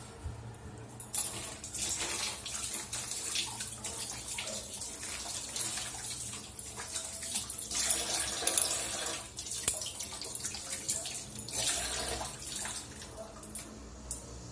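Tap water running into a washing machine tub, splashing unevenly, easing off briefly partway through and stopping near the end.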